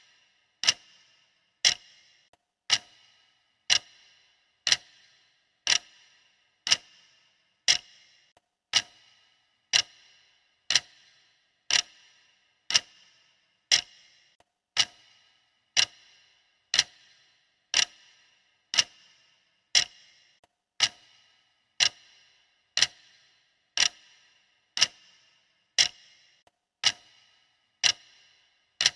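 Clock-style ticking of a countdown timer: one sharp tick about every second, each with a brief metallic ring, steady and even.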